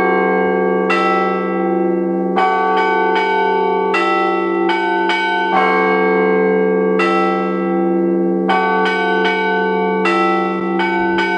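Russian Orthodox bell ringing (zvon) in the Rostov style: one ringer pulls clapper ropes to strike a set of fixed church bells. Small bells chime in quick rhythmic clusters over the long, steady hum of the larger bells.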